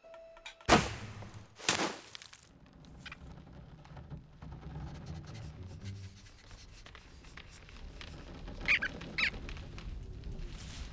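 Animated-cartoon sound effects: two sharp hits about a second in, then a faint rustling forest ambience, with two short high squeaks from a small rodent character near the end.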